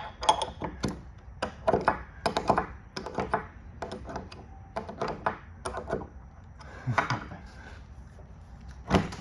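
Irregular wooden and metal knocks and clicks of clamps and tools being handled during a glue-up, about one or two a second, with a quieter stretch near the end.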